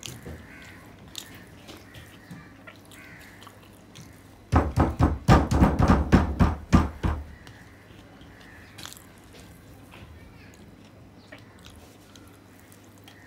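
Fingers mixing rice against a steel plate, faint scattered clicks and squishes. About four and a half seconds in, a rapid run of about a dozen loud knocks or bangs, four or five a second, lasts about two and a half seconds and is the loudest thing heard.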